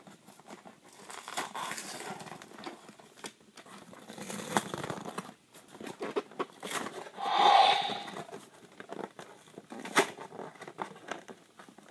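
Cardboard toy box being torn and pulled open by hand: irregular tearing and crinkling with scattered sharp snaps, one of them strong near the end.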